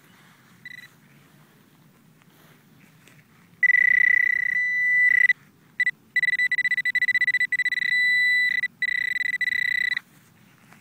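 A metal detector's high electronic tone over a target in the dug hole: a short blip about a second in, then a steady tone that sounds for several seconds, cutting out briefly a few times and pulsing quickly in places. It signals metal close by in the hole.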